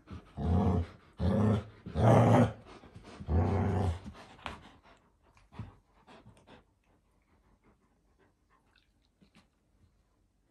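Two puppies, an Alaskan Malamute and a golden retriever, growling in play during a tug of war: four short growls in the first four seconds, then fainter clicks as they mouth the toy.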